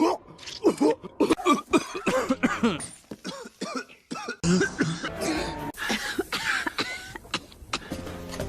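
Cartoon character coughing in a string of short, voiced hacking coughs, then a second coughing fit after a short pause. Background music comes in near the end.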